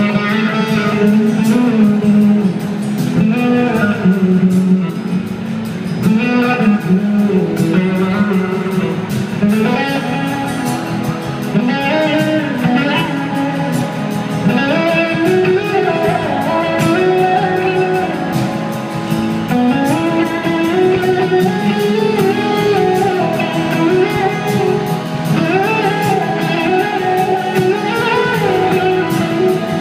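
Live blues-rock band playing at full volume, an electric guitar lead with notes that glide up and down over drums, bass and rhythm guitar.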